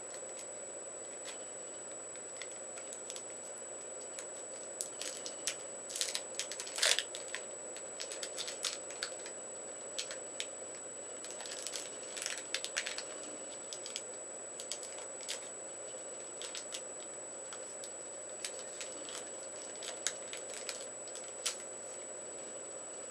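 A pack of trading cards being torn open and its wrapper and cards handled: scattered crinkles, tears and clicks, the loudest about six to seven seconds in. A faint steady high whine runs underneath.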